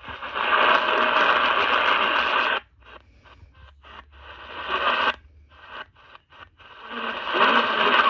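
Static hiss from an Eton portable radio's speaker as it is tuned up the AM band. Stretches of steady hiss alternate with choppy bursts and brief gaps as it steps from frequency to frequency, settling on hiss with faint wavering whistles near the end around 1680 kHz.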